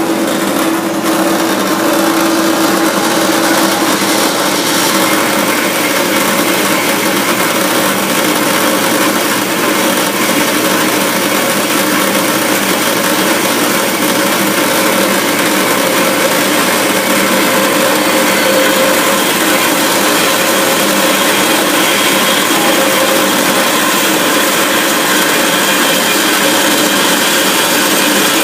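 Kalamazoo H9ADV horizontal bandsaw running steadily, its blade cutting through stock in a continuous whir and rasp. The owner thinks the blade is pretty dull.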